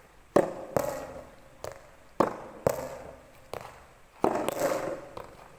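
Soft tennis rubber ball being struck by rackets and bouncing on the court: a string of sharp pops, about seven of them, spaced roughly half a second to a second apart. A longer burst of noisy sound comes about four seconds in.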